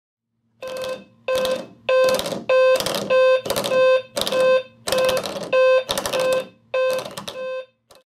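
Central Alert CA-360 alarm clock going off on alarm 1: about a dozen loud beeps of one steady pitch, roughly two a second. Under them runs a low steady hum from the bed shaker vibrating, as the 'all' alarm setting runs sound and shaker together.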